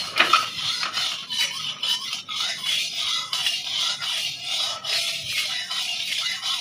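Oil sizzling in a steel kadai while a steel spatula stirs and scrapes the pan, with a sharp knock of the spatula on the pan just after the start.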